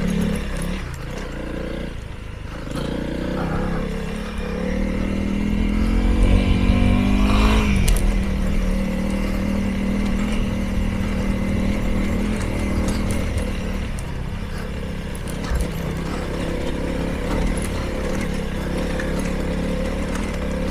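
Honda CRF300L's single-cylinder four-stroke engine pulling the bike along a rough, stony trail. The revs climb for a few seconds near the middle, drop back, then hold fairly steady.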